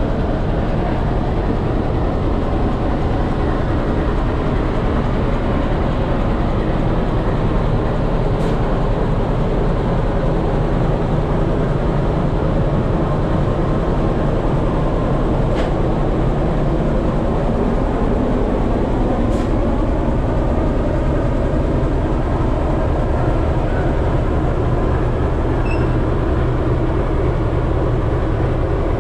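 D9E-class diesel-electric locomotive's engine running at a steady, loud drone, with a few faint clicks.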